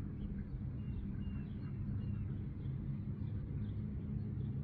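Park ambience: a steady low rumble of distant traffic, with faint, scattered bird chirps over it.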